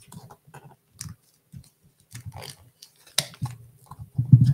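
A shipping package being picked and torn open with a Cricut craft tool: irregular scratching, crinkling and clicking of packaging, with a louder dull thump of the package being handled near the end.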